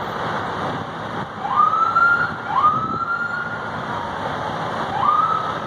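An emergency-vehicle siren gives three short whoops. Each sweeps quickly up in pitch and then holds, the second one longest. They sound over a steady hum of traffic and wind.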